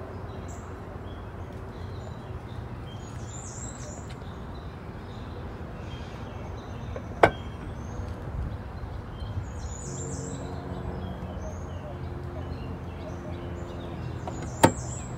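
The Yuki Amy electric car's charging-port flap clicks open, then about seven seconds later snaps shut, over steady low background noise with birds chirping.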